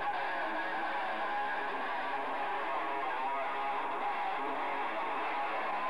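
Live rock band playing, with electric guitars strumming, in a thin recording that has little bass.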